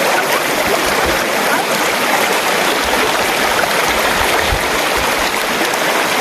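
River water rushing steadily past, a constant wash of noise with no break.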